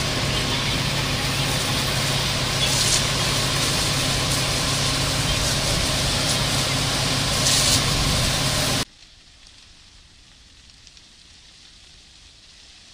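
Loud steady rushing noise from a firefighting hose jet and the wildfire, with a steady low engine hum from a pump running underneath. About nine seconds in it cuts off abruptly to a faint steady hiss.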